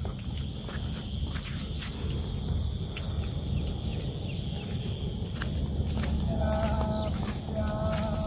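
Steady high-pitched chorus of crickets and other insects over a low steady rumble, with scattered faint clicks. Two short, even-pitched animal calls come about two-thirds of the way through.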